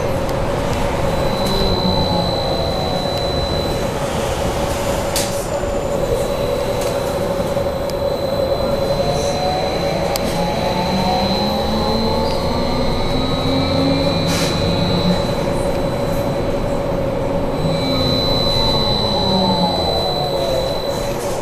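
BKM 43300D trolleybus under way, heard from inside: the electric traction drive whines, its pitch gliding up as it accelerates and back down as it slows, over steady high tones and rolling rattle. A couple of sharp knocks are heard along the way.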